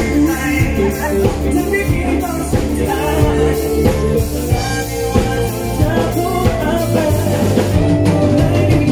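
Live pop song played by a band through PA speakers, with a steady drum beat and a man singing into a handheld microphone.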